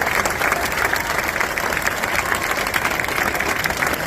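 Audience applause: dense, continuous clapping.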